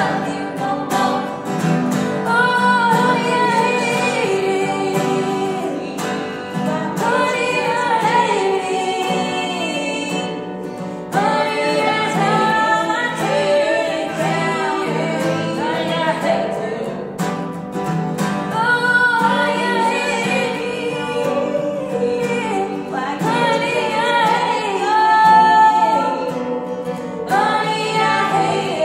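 Women singing a song to acoustic guitar accompaniment.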